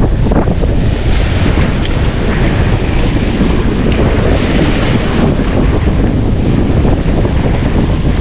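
Strong wind buffeting the microphone in a loud, steady rumble, with the wash of sea waves beneath it.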